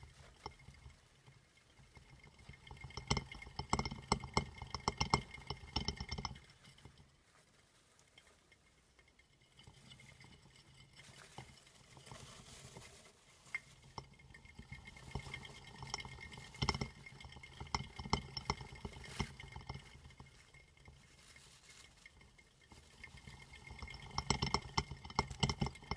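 Green plastic saucer-style hamster wheel rattling and clicking on its central pivot as a dwarf hamster runs on it, in spells of quick clattering with quieter stretches between; the busiest spells come about three to six seconds in and again near the end.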